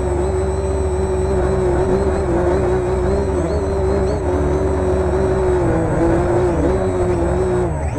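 Homemade quadcopter's electric motors and propellers running with a steady whine whose pitch dips briefly every second or so as the motor speeds adjust, over a low wind rumble on the microphone.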